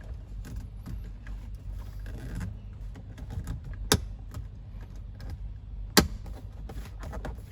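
Plastic handling noises and two sharp clicks about two seconds apart as the Mercedes W212 dashboard display is pushed into its mount and snaps into place.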